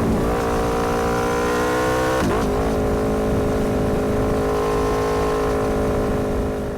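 Motorcycle engine under way, dropping in pitch and picking up again twice, at the start and about two seconds in, like gear changes, then holding a steady pitch. It begins to fade near the end.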